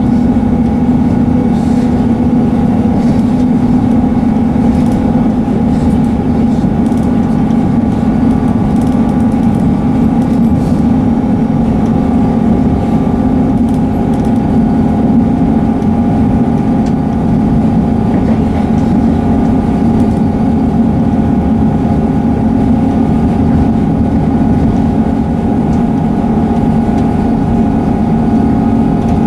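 Class 158 diesel multiple unit heard on board while under way: its underfloor diesel engine runs at a constant speed with a steady, unchanging hum over the rumble of the train.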